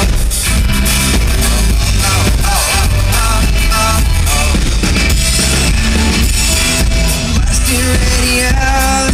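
Live rock band playing loud, with a heavy bass and a steady beat.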